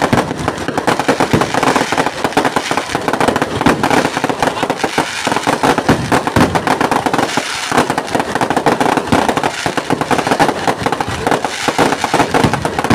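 Aerial fireworks bursting overhead in a dense, unbroken barrage of rapid bangs and crackles.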